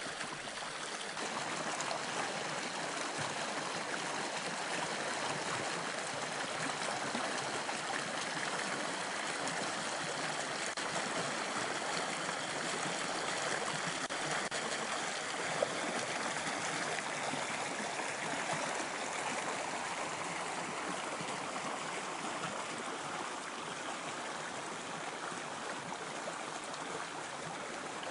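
Small creek rushing steadily as its water spills over a rock step and churns into a pool below, with one brief click about halfway through.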